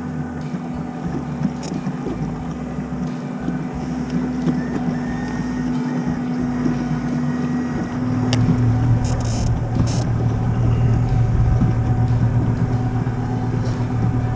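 Boat's outboard motor running steadily under way, with wind rumbling on the microphone. About eight seconds in, the engine note deepens and grows louder.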